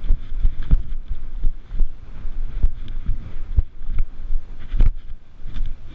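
Wind rumbling on a worn action camera's microphone, broken by irregular thumps of footsteps as the wearer walks over rock and sand.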